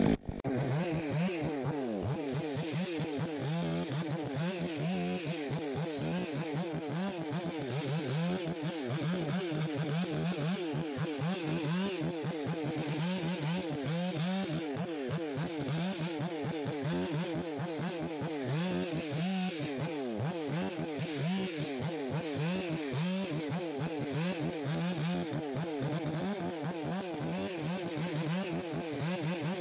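Stihl MS661 two-stroke chainsaw limbing a felled white fir, its engine pitch rising and falling constantly as the throttle is worked from branch to branch.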